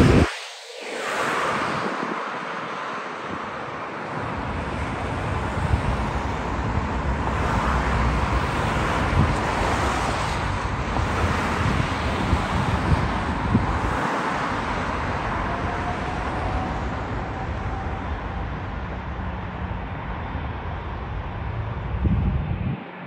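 Wind rumbling on the microphone over the broad, steady roar of a British Airways Airbus A350 twin-jet on final approach. A faint rising whine comes through in the middle.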